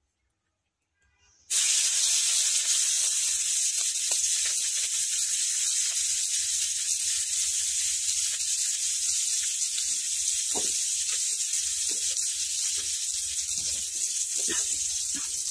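Sliced onions and green chillies sizzling in hot oil in an aluminium pot. The sizzle starts suddenly about a second and a half in as they hit the oil, then settles into a steady loud hiss.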